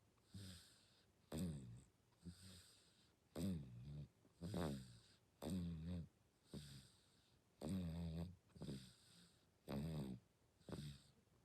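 Six-month-old baby snoring in sleep: short, quick snores about once a second, each a soft buzzy tone, several falling in pitch.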